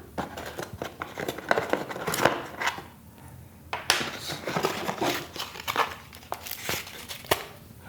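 Unboxing handling: packaging rustling with irregular small clicks and knocks as a power adapter and cord are taken out and set down.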